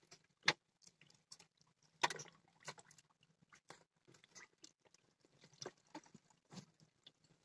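Faint, irregular crunches and clicks of broken ice and the hoisting rig being worked, with two sharper clicks about half a second and two seconds in.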